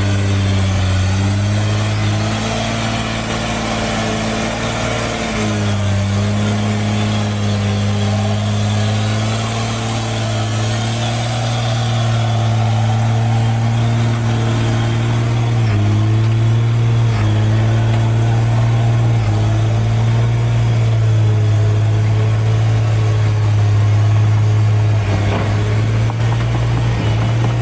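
Hino 500 dump truck's diesel engine working hard under load as the truck struggles for grip in slick red clay. Its steady note drops briefly in pitch a few times and recovers.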